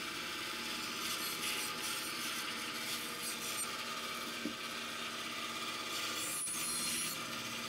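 Bandsaw running steadily as its blade cuts through a wooden shoe last, trimming wood from the sides of the block to narrow the last.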